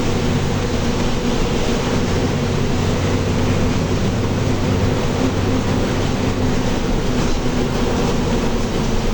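Mercedes-Benz OF-1724L bus's six-cylinder diesel engine running steadily under way, with road and body noise around it.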